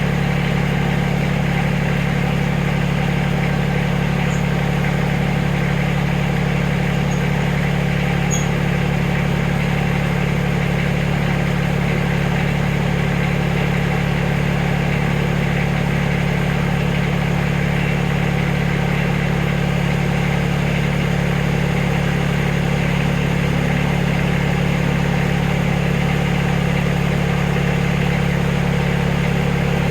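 Backhoe engine running at a steady, unchanging speed.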